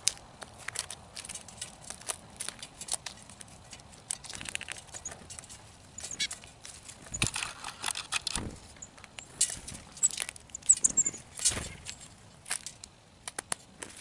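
Birds pecking and picking through seed in feeder trays: irregular sharp taps and clicks of bills on seed and tray, with a few faint high chirps.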